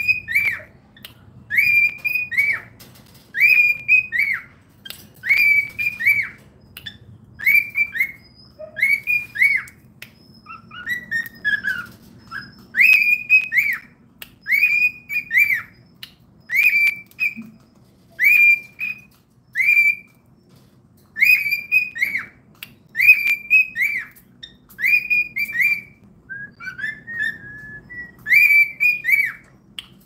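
Cockatiel calling over and over: a loud whistled call, usually two quick arched notes, repeated about once a second, with a few lower, falling notes now and then.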